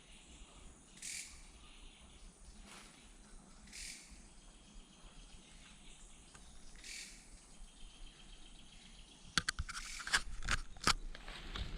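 Quiet rainforest ambience of insects, with three short, high bird calls. Near the end come crunching footsteps and crackling of dry leaves and twigs underfoot.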